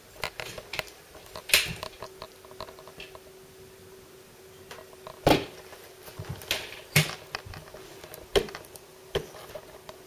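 Handling noise: irregular sharp clicks and knocks, about six of them, over a faint steady hum.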